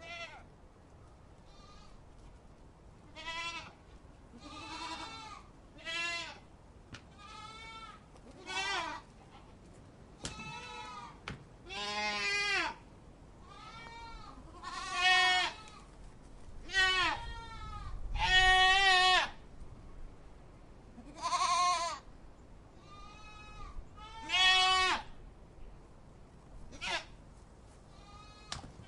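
Goat kids bleating over and over, a high quavering call every one to three seconds. Some calls are short and others longer and louder.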